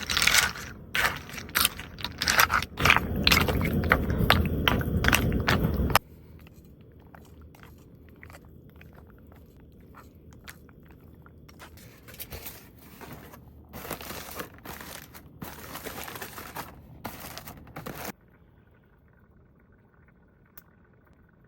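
Dry rigatoni pasta being poured into the pot, a dense rattling crunch that cuts off suddenly about six seconds in. After that come quieter, scattered small clicks and scrapes.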